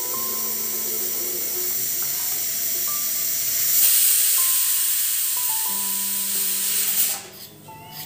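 A steady, loud hiss that grows stronger about four seconds in and cuts off sharply near the end, over gentle background music.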